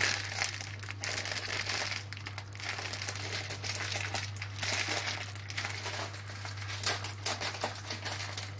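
Melted ghee crackling and sizzling in a cooking pot on the stove as it heats up for frying vermicelli, a dense run of small irregular crackles. A steady low hum from the kitchen extractor fan sits underneath.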